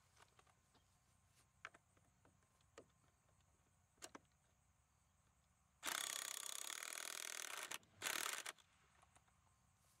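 Cordless drill running a lag screw through a fence-rail end buckle into a wooden post: a few light clicks and taps, then about six seconds in the drill runs for about two seconds, followed by a shorter second burst.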